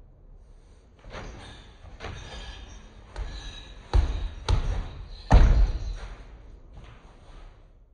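Punches and other strikes landing on an Everlast PowerCore heavy bag: a string of solid thuds about a second apart, the hardest one about five seconds in.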